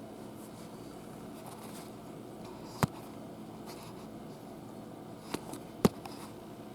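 Three sharp clicks over a steady low hum: one about three seconds in, then two close together near six seconds in, the last the loudest.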